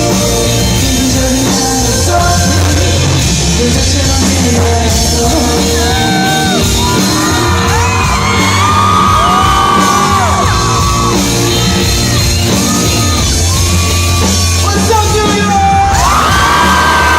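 A live band plays a loud song with male singing, in a large hall. Audience members yell and whoop over the music.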